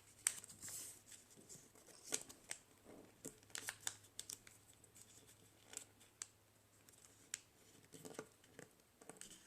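Faint rustling and short crisp crackles of a square of origami paper being handled, folded and creased by hand, coming in irregular clusters.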